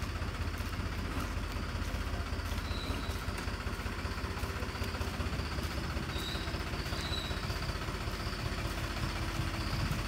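Tractor engine running steadily at low speed as it pulls a loaded trailer, a continuous low engine drone.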